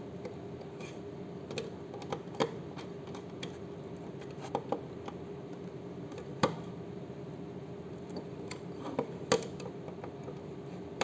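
Scattered small clicks and taps of wires being pushed into a plastic key card switch's screw terminals and a small screwdriver working a terminal screw, the sharpest clicks about two, six and nine seconds in. A steady low hum sits underneath.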